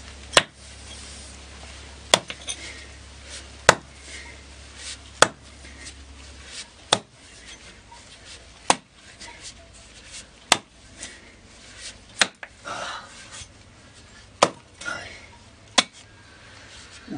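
A camping axe chopping into a bank of earth and roots: about ten sharp strikes, one every second and a half or so, with soil scraping and crumbling between some of the later strikes.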